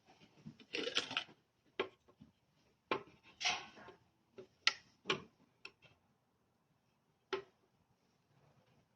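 Irregular clinks, knocks and short clattering of hard objects being handled, like dishes or kitchen utensils. There are two longer rattling clatters around one and three and a half seconds in, then scattered single knocks, the last one after about seven seconds.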